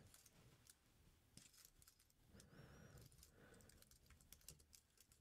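Faint typing on a computer keyboard: scattered light key clicks as a line of C code is entered.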